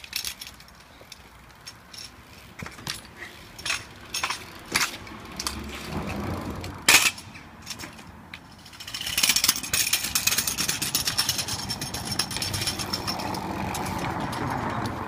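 Scattered knocks and clacks of kick scooters and a BMX on paving stones, with one sharp impact about seven seconds in. From about nine seconds on comes a steady clattering rattle of small hard wheels rolling over the paving.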